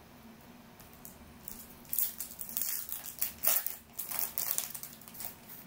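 Silver foil wrapper of a Topps Merlin Chrome trading-card pack being torn open and crinkled by hand: a run of sharp crackles starting about two seconds in and stopping near the end.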